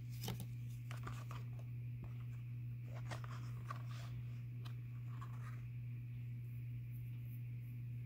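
Handling of oracle cards: small clicks, taps and rustles of card stock as a card is drawn and stood upright in a card stand, stopping a little over halfway through. A steady low hum sits underneath.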